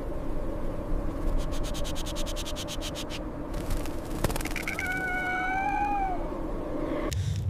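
A red fox gives one whining cry of about a second and a half, about five seconds in, that bends slightly and drops away at the end. Earlier there is a run of quick crackles, and a steady low whoosh runs underneath.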